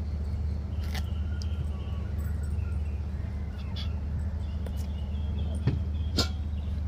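A steady low hum, with a few sharp clicks and faint high-pitched animal calls.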